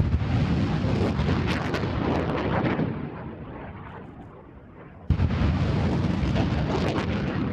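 M270A1 MLRS rockets launching: a sudden blast of rocket ignition followed by a rushing noise that fades over about four seconds, then a second launch begins abruptly about five seconds in.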